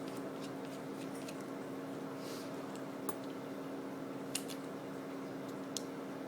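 A few sharp clicks and taps from the small plastic parts of a webcam being handled and pried apart, over a steady low hum.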